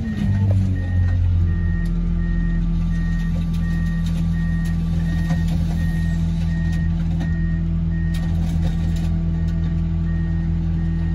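A vehicle's reversing alarm beeping in an even, repeating series over its engine running at a steady speed.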